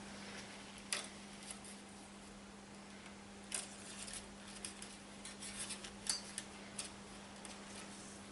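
Faint, scattered small metallic clicks and taps as a steel brake cable is fed down behind the pinch bolt of a dual pivot rim brake caliper and the caliper arms are handled.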